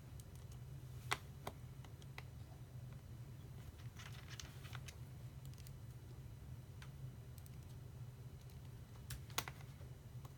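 Faint, scattered small clicks and light tapping from a small screwdriver and screws as screws are driven into a MacBook Pro's display hinge bracket, over a steady low hum.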